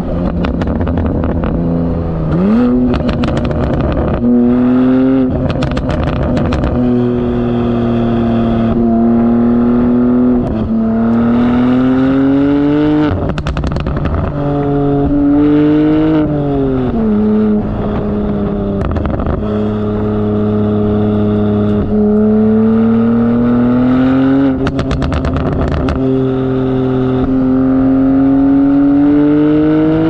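BMW M2 G87's S58 twin-turbo inline-six running through a TFL Italy catback exhaust with the valves open in Sport+. The engine note climbs and falls as the car accelerates, shifts and eases off, with several spells of rapid crackling.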